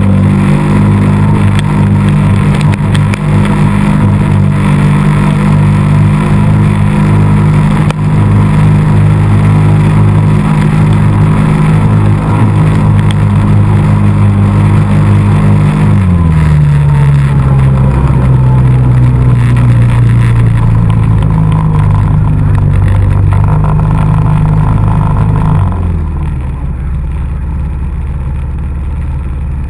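ATV engine running steadily at high revs. Its note steps down to a lower pitch about halfway through, then drops again and gets quieter near the end as the rider eases off.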